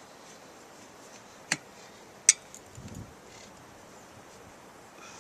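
Tire levers clicking sharply against a motorcycle wheel rim, twice, while the tire bead is worked onto the rim, with a soft low thump a little later.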